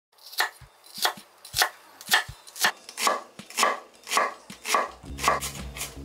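A wide-bladed kitchen knife cutting a red onion on a wooden cutting board: even, sharp chops, about two a second, each one the blade going through the onion and striking the board.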